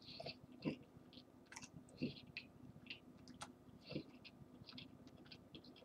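Faint, irregular chewing of a cinnamon Pop-Tart, with small wet mouth clicks coming every half second or so.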